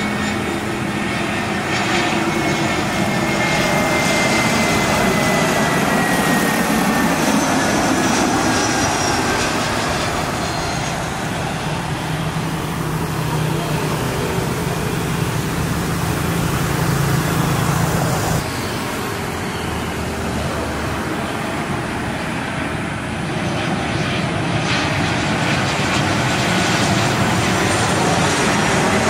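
Jet airliner engines running at high power, a loud steady roar with a thin whine that slides slowly down in pitch over the first several seconds. The sound changes abruptly about two-thirds of the way through, to another jet's engine noise.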